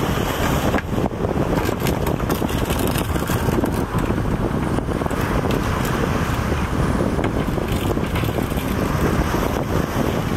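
Wind buffeting the microphone: a steady, dense rushing noise that is heaviest in the low end, with a few faint brief clicks.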